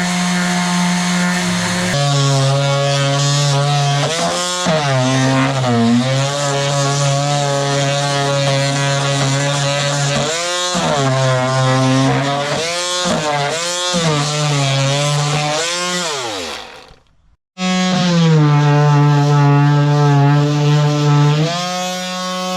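Electric power tool motor running loudly, its pitch dipping and recovering several times as it is pressed into the work. About three quarters of the way through it winds down to a stop, then starts up again.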